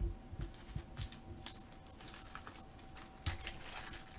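A foil trading-card pack of 2021-22 Panini Revolution basketball being handled and torn open: irregular crinkling and crackling of the foil wrapper, with a few light knocks from handling.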